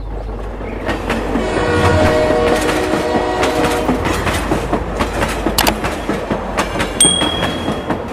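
Toy steam locomotive running along its plastic track with a rapid clicking clatter, and a horn-like chord sounding from about two to four and a half seconds in.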